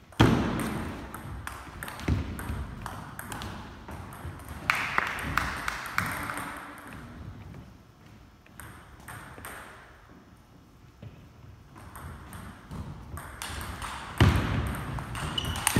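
Table tennis rally: a stream of sharp clicks as the ball hits the paddles and the table. The hits thin out to occasional clicks in the middle between points, and the next rally starts near the end.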